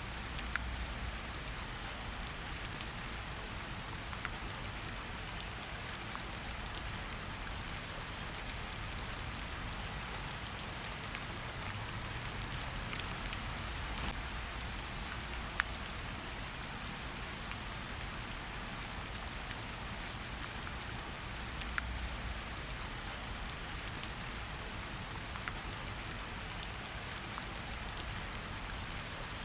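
Steady heavy rain pattering on a surface, with scattered sharper drop ticks standing out here and there.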